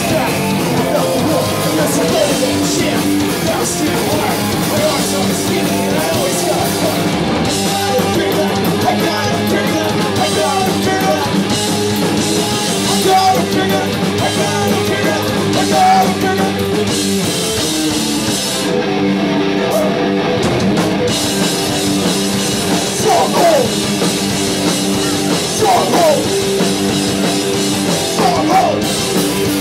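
A three-piece punk rock band playing live: distorted electric guitar, bass guitar and drum kit, loud and continuous throughout.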